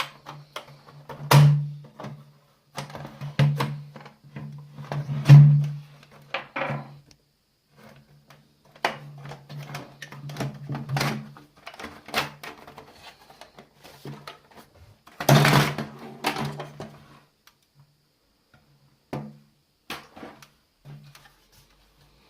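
Irregular clicks, knocks and rattles of a Sky+HD set-top box's plastic and metal casing and parts being handled and taken apart, with the loudest clatter about fifteen seconds in.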